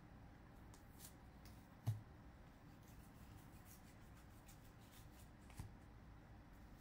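Faint flicking and sliding of baseball trading cards flipped through by hand. A soft thump comes about two seconds in, and a smaller one later.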